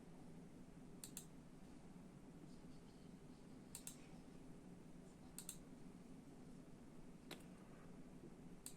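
Faint, separate keypresses on a ZET GAMING Blade PRO mechanical keyboard with Kailh Red linear switches: about five presses a second or two apart, most heard as a quick double click.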